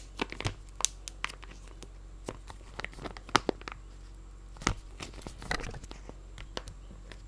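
A knife cutting and prying at glued retail packaging: irregular scrapes, crinkles and tearing, with a few sharper clicks and snaps in the middle. The glue holding the package shut is strong, so the blade works at it in short efforts.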